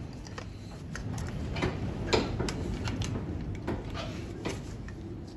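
Irregular light clicks and taps from the clutch self-adjuster ratchet parts being handled and fitted on a Ford Cortina Mk5 pedal box, the loudest click a little after two seconds in.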